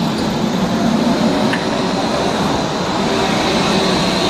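Crotram TMK 2200 low-floor tram passing slowly at close range: a steady rumble of wheels on rails, with a thin, steady high whine above it.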